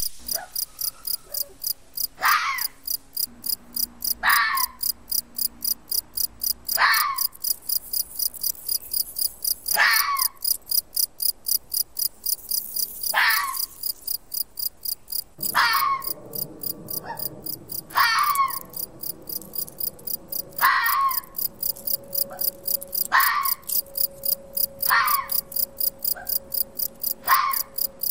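A red fox barking: short, sharp single barks repeated about every two to three seconds, a dozen in all, over a steady chirping of crickets. About halfway through there is a few seconds of low rustling in dry ground litter.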